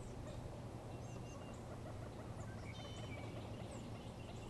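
Scattered high chirps and short calls of small wild birds, with one fuller call about three seconds in, over a steady low hum and even background noise.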